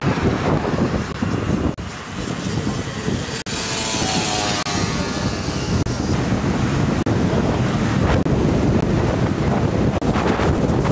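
Strong wind buffeting the microphone over the low rumble of an Ilyushin Il-86 jet airliner. About four seconds in, a hissing whine with faint sliding tones swells and fades.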